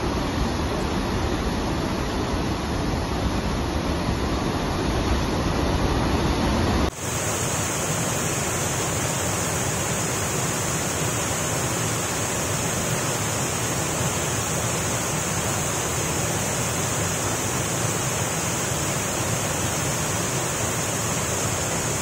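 Steady rush of heavy floodwater pouring over waterfalls in monsoon spate. About seven seconds in it cuts abruptly to a wide cascade spilling over a ledge, a thinner, hissier rush with less low rumble.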